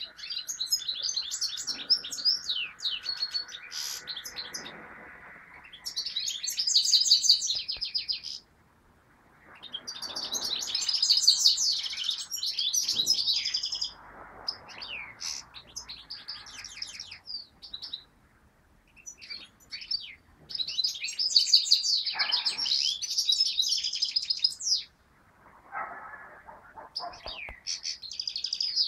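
Caged finch singing: fast, high twittering phrases of a few seconds each, repeated five or six times with short pauses between.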